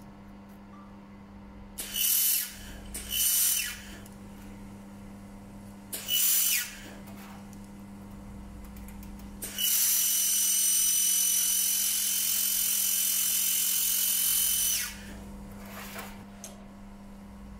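Handheld fiber laser welder welding 2.5 mm stainless steel: three short tack welds, then one steady continuous weld of about five seconds, each a loud hiss with a steady high tone. A low steady hum runs underneath.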